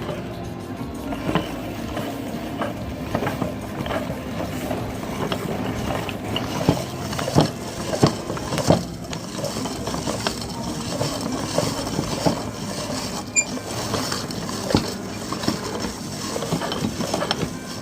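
Meat grinder running with a steady hum, hard pieces cracking and clicking irregularly as they are crushed, with a cluster of louder cracks near the middle.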